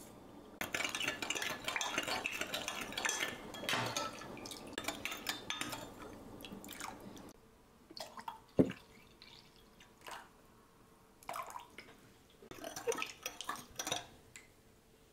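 A metal spoon stirring sugar into liquid in a glass measuring jug, scraping steadily against the glass for several seconds. Water is then poured in from a pitcher, with one sharp clink of the spoon on the glass, and scattered clinks follow as stirring resumes.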